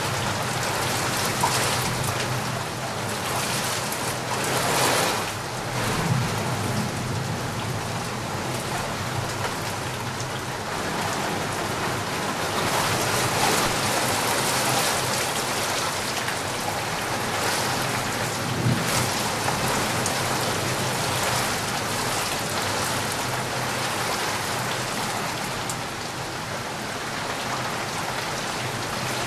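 A steady, even hiss like falling rain, with a faint low hum underneath.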